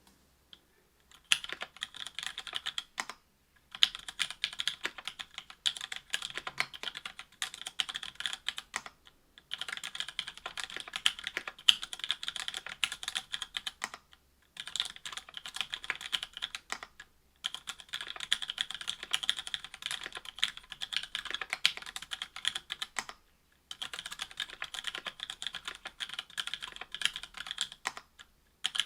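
Typing on a mechanical keyboard with stock, unlubricated Cherry Hyperglide MX Black linear switches on an FR-4 plate under GMK keycaps: fast runs of key clacks in several bursts, broken by short pauses of about a second.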